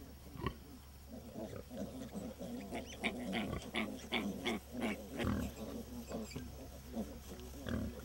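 Pigs grunting continually in short low grunts, with a quick run of about eight louder, sharper grunts some three to five seconds in.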